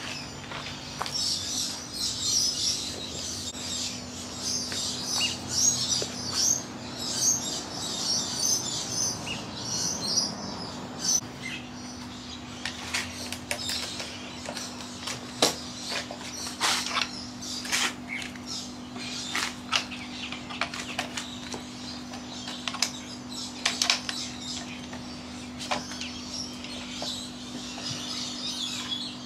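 Birds chirping and calling over the steady hum of an air-conditioning unit; the chirping is busy for about the first ten seconds, then thins out, and scattered sharp clicks come in the second half.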